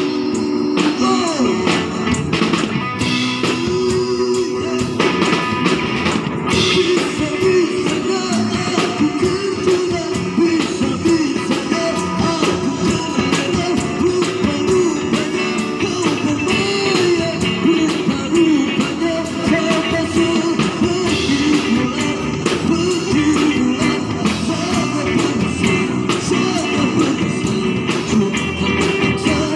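A live band plays a rock-style song through a PA system: a male singer on a handheld microphone over bass guitar and drums.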